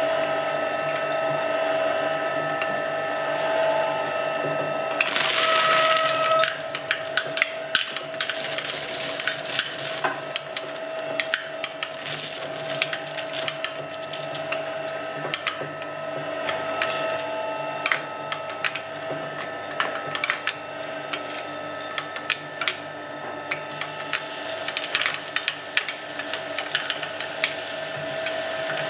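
Filamaker twin-shaft shredder running with a steady motor and gearbox whine, its cutter discs tearing through toilet paper rolls. There is a louder rush of noise about five seconds in, then a stream of crackling snaps as the paper is chewed up.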